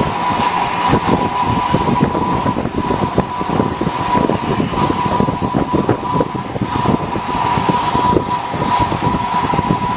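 CNC plasma cutter cutting metal plate: a loud, steady hiss of the arc full of irregular crackling, with a steady high-pitched whine over it.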